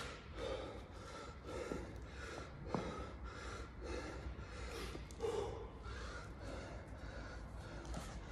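A man breathing hard, panting in and out about once a second as he catches his breath after exertion, with a couple of faint knocks.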